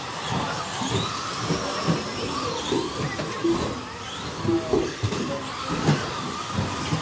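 Several 1/10-scale electric stadium trucks racing on a carpet track: their 21.5-turn brushless motors whine up and down in pitch as they accelerate and brake, over a hiss of tyres, with frequent short knocks from the trucks landing and bumping.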